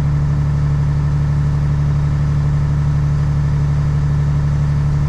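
Tractor's diesel engine running steadily at a constant speed.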